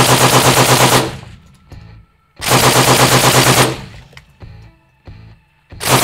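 Textron NGSW prototype automatic rifle, suppressed and firing 6.8 mm case-telescoped rounds, shooting short full-auto bursts of about ten shots a second. One burst of about a second comes at the start, another about two and a half seconds in, and a third begins near the end.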